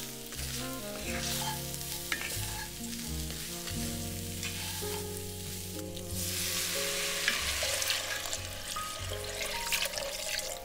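Chopped vegetables sizzling in a Dutch oven as a wooden spoon stirs and scrapes them; about six seconds in, veggie broth is poured in and the hiss grows louder. Background music plays throughout.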